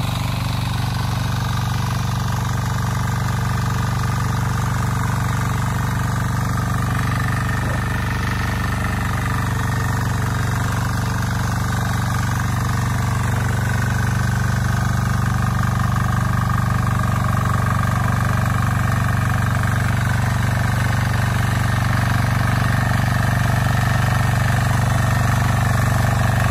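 Trâu Vàng walk-behind mini tiller's 173F single-cylinder diesel engine running steadily as it tills muddy rice stubble, getting a little louder near the end.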